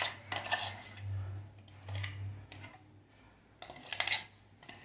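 A metal spoon scraping and clinking against an aluminium pot of hot milk, in three short bursts.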